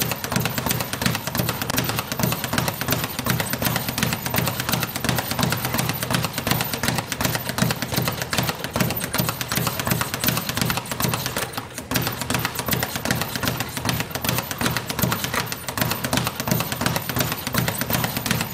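Speed bag being punched in a fast, continuous rhythm, the bag rattling against the rebound platform, with a momentary break about two-thirds of the way through.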